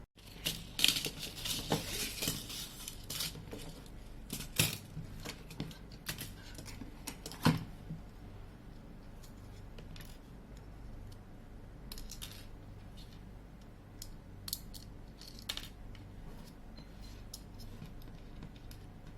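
Small tools clicking and scraping against the parts of a Samsung A12 phone being taken apart. A dense run of scraping and clicks comes in the first few seconds, with sharp single clicks about four and a half and seven and a half seconds in, then lighter scattered ticks.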